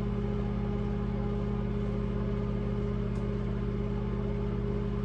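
A steady, unchanging low mechanical hum made of several even tones.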